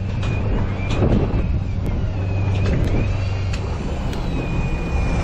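A boat's engine droning steadily, with a thin high whine that wavers up and down and a few sharp ticks over it.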